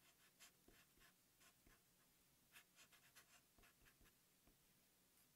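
Very faint felt-tip marker strokes on paper: a scattering of soft, short scratches and taps as small circuit symbols are drawn.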